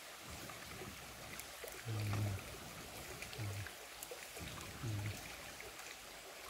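Shallow stream running over rocks as a steady wash, with faint clicks and a few short low tones, the loudest about two seconds in.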